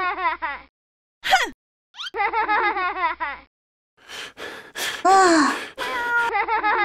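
High-pitched cartoon giggling laugh, in quick even pulses, heard in short bursts at the start, about two seconds in and again near the end. Between them comes a gasp and a short, falling, startled cry.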